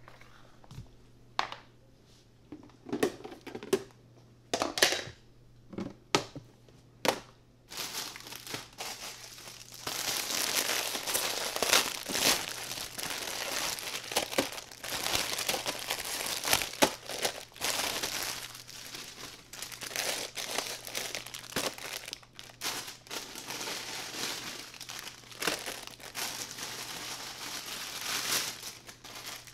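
Plastic wrappers of instant-noodle and snack packets crinkling as they are handled and packed into a plastic storage container. There are a few scattered taps and knocks at first, and about eight seconds in the crinkling becomes continuous.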